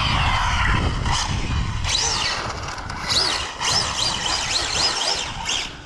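High-pitched whine of an Arrma Infraction RC car's TP Power 4076 brushless motor, run on 8S, and its drivetrain as the car drives along the road. The pitch rises and falls several times with the throttle, and the wind rumbles on the microphone at first.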